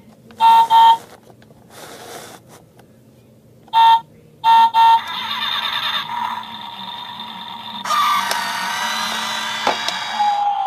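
Toy car's electronic sound effects, set off by pressing its roof: two sets of three short horn beeps, then a longer warbling electronic sound that gets louder about eight seconds in.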